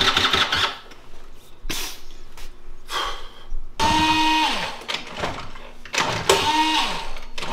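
A scooter's electric starter cranks in two short bursts, about four seconds in and again near the end, each ending in a falling whine as the starter spins down. The engine has not yet caught. A brief clatter comes at the very start.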